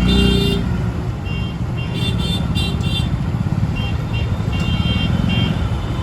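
Busy road traffic: engines running with a steady low rumble, and vehicle horns honking in short repeated toots, the loudest right at the start.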